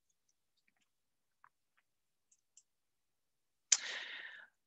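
Near silence, broken near the end by one short hiss of under a second that starts sharply and fades.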